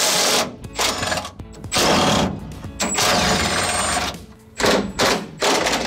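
Cordless power driver with a long socket extension running in about six short bursts, spinning off the brake booster's retaining nuts through the firewall.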